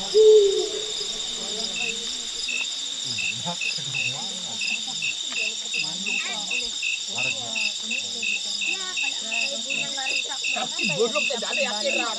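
Night insect chorus of crickets: a steady high-pitched trilling drone, joined about two seconds in by a second insect chirping in even pulses about three times a second. Faint low murmuring voices sit underneath, and there is a short louder tone right at the start.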